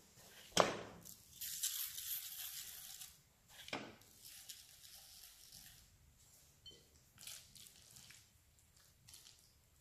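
Faint handling sounds: a sharp tap as a steel ring mold is set down on a parchment-lined baking tray, then a soft papery rustle of breadcrumbs being sprinkled into it, followed by a few light knocks.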